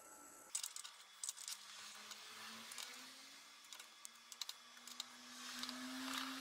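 CNC machine's spindle motor running as a faint hum that slowly rises in pitch, with scattered light clicks.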